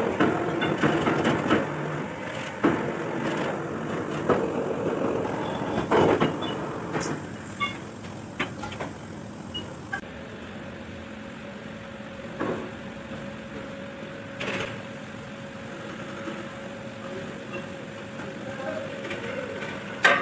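Workshop sounds around an engine block being overhauled: scattered metal clinks and knocks as parts are handled, with voices in the background. A faint steady hum carries on in the quieter second half.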